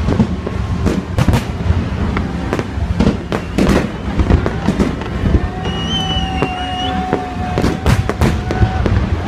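Fireworks display: a dense barrage of shell bursts, bangs and crackling. A long steady whistling tone runs through the second half.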